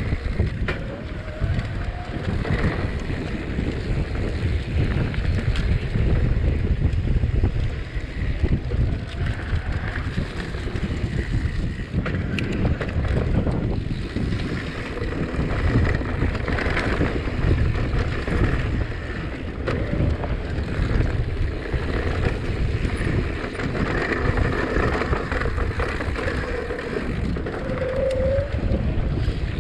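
Mountain bike riding a dirt trail: wind buffeting the camera microphone, over the rumble of tyres and many small knocks and rattles of the bike on rough ground.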